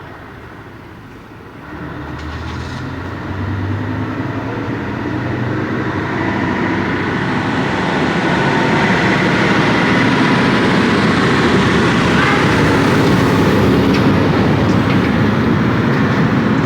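Heavy transport truck with a railcar on its trailer approaching: engine and tyre noise grow steadily louder from about two seconds in and stay loud until the sound cuts off abruptly.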